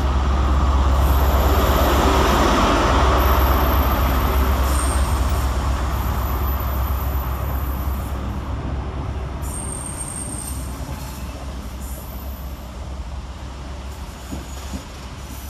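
CrossCountry HST arriving and slowing, led by a Class 43 power car with an MTU diesel engine: the power car's engine drone and rumble are loudest in the first few seconds as it passes, then the Mark 3 coaches roll by more and more quietly. Thin high-pitched squeals come and go through the first ten seconds.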